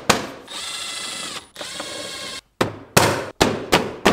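A cordless driver whirs in two short runs, driving screws into a plastic power-station case. Before and after the runs come sharp clicks and knocks as the plastic cover panel is pressed into place.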